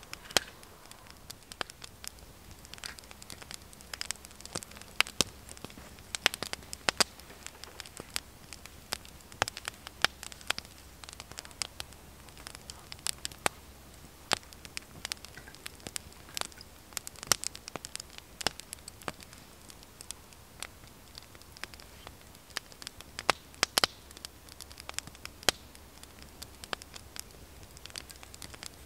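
Wood campfire crackling, with irregular sharp pops throughout.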